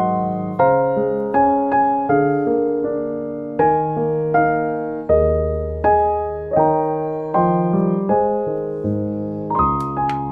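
Background piano music: a gentle melody with chords, each note struck and fading away.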